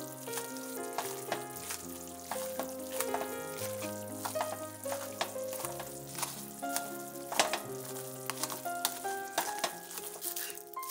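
Metal wire potato masher working boiled potatoes and milk in a stainless steel saucepan: repeated wet squelching, with clicks and scrapes of the masher against the pot, one sharper knock about seven seconds in. Soft background music with a slow bass line runs underneath.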